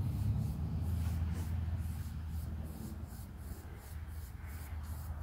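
A paintbrush stroking wood stain back and forth along pine boards: a rhythmic brushing scratch, about three strokes a second, over a steady low rumble.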